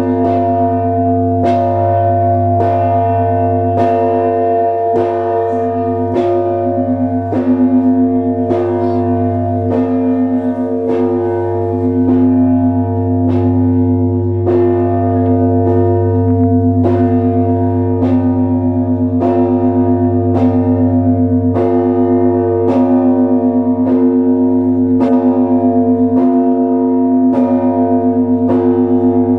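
Church bells of the Trinity-Sergius Lavra belfry being rung in the Orthodox manner: several bells of different pitches are struck in a steady rhythm, roughly one strike a second, and keep ringing over the deep, sustained hum of a large bell.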